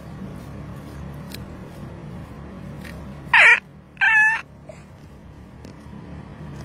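Two short, loud, high-pitched meow-like cries about half a second apart: the first slides down in pitch, the second holds steady. A steady low car-cabin hum runs underneath.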